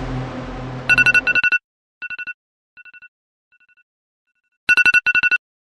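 Electronic alarm beeping in quick groups of two-tone pulses. It is loud at first, grows fainter over several repeats, and is loud again near the end. A steady noise with a low hum cuts off just before the first beeps.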